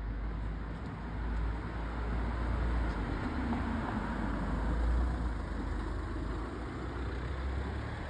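Road traffic noise: a low rumble of vehicle engines and tyres that swells to a peak about five seconds in, then eases off.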